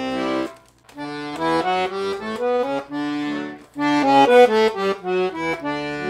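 Red Parrot Kiwi 26-key, 48-bass piano accordion with two-reed treble, playing a melody over left-hand bass and chord accompaniment. The tune pauses briefly twice, between phrases.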